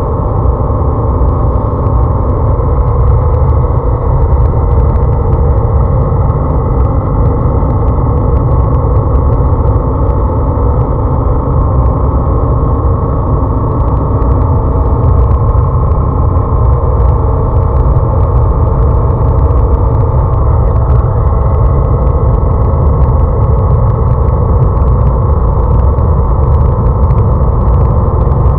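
Wind rushing over the microphone of a camera on a moving motorcycle, a steady heavy low rumble, with the bike's engine running underneath at cruising speed. The engine note shifts slightly about twenty seconds in.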